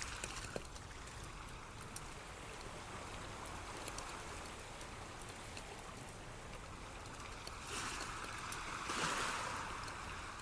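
Running water of a small stream, trickling and gurgling steadily, swelling louder twice near the end.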